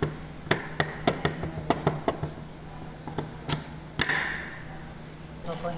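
Hydraulic pump housing and parts knocking and clinking against a steel plate as they are handled and fitted together by hand: a quick run of sharp metallic clicks in the first two seconds, then a few more, the last ringing briefly. A steady low hum runs underneath.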